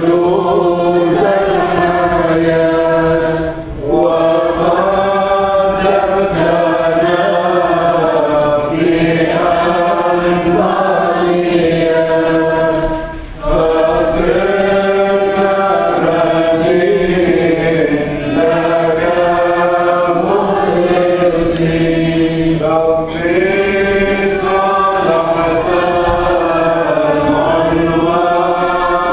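Church congregation singing a Maronite liturgical hymn together, in long held chant-like phrases with short breaths between them, about four and thirteen seconds in.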